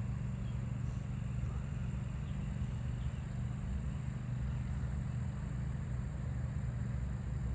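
Steady low rumble of distant traffic, with a faint, high, even insect trill running over it.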